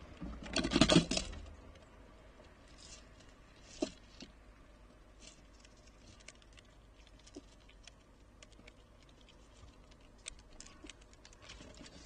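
Ezo red squirrel moving about on a wooden seed feeder. A loud scuffle comes about a second in, a single knock near four seconds, then scattered faint clicks and taps as it feeds among the seeds.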